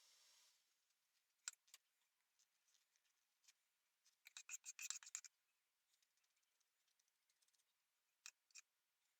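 Faint, sharp clicks from handwork on the leather: a couple of single ticks, then a quick run of about a dozen in the middle, and two more near the end.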